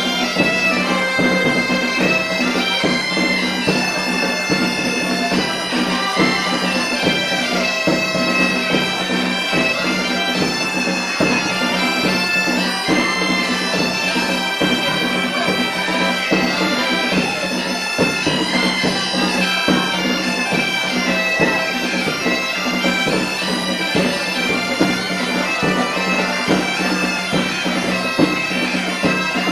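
Galician bagpipes (gaita) playing a tune over a steady low drone, with drum beats alongside.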